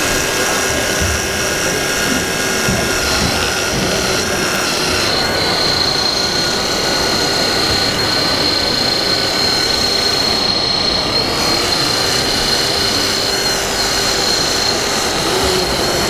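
Hydraulic pump of an RC LiuGong 870K model wheel loader whining steadily at a high pitch while it works the bucket, over a dense, steady background din.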